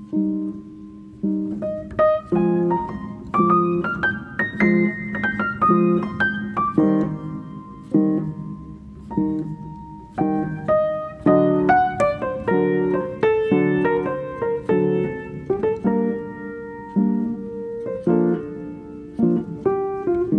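Instrumental background music led by piano, single notes and chords struck in a gentle, unhurried melody.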